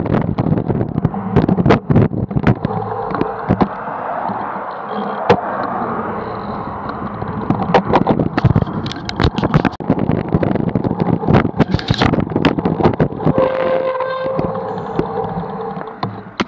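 Wind and road noise on a camera mounted on a moving bicycle, with frequent sharp knocks and rattles as it rides over the bumps of the road surface.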